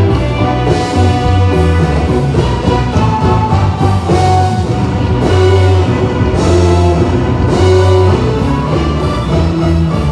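Loud instrumental music with sustained bass notes and held tones, played through a band's PA system during a sound check.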